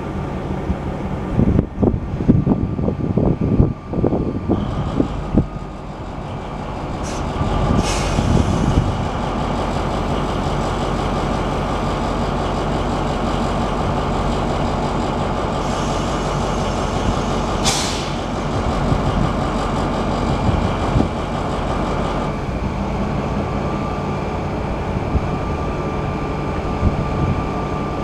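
Class 218 diesel-hydraulic locomotive's MTU diesel engine running at standstill. It starts with uneven low rumbling for the first few seconds, then settles into a steady drone. Two sharp hisses of compressed air come about 8 and 18 seconds in.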